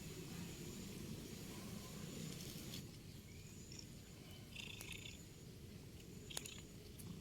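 Faint sounds of cats at catnip: soft rustling, a short breathy hiss-like noise about four and a half seconds in, and a couple of sharp little clicks near the end, over a low room rumble.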